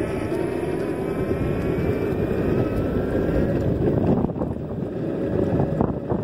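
Electric longboard's motor whine, gliding slowly up in pitch as it gathers speed, over a low rumble of wheels rolling on asphalt. From about four seconds in the whine fades and wind buffeting the microphone takes over.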